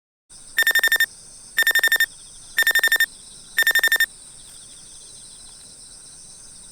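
Four short bursts of rapid high-pitched beeping, about a second apart, over a steady chorus of night insects such as crickets.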